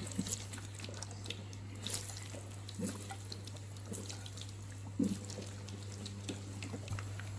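Potato pieces frying in hot oil in a wok: a soft sizzle with scattered crackles and pops, over a steady low hum.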